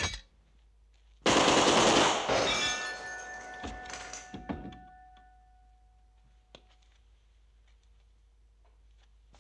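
A short, loud burst of machine-gun fire about a second in, lasting under a second and then dying away over a few seconds in a ringing decay. A single faint click follows later.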